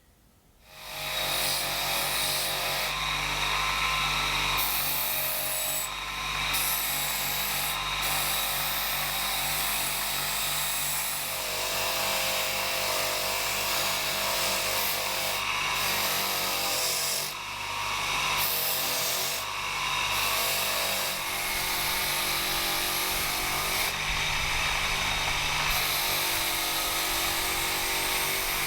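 An electric power tool starts about a second in and runs steadily, grinding or sanding against the workpiece, its high hiss dropping away briefly several times as the work is lifted off.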